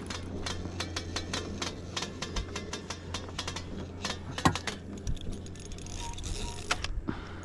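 Light metallic clicking and rattling as fishing tackle is handled in a boat, irregular taps with a short cluster about halfway through, over a steady low hum.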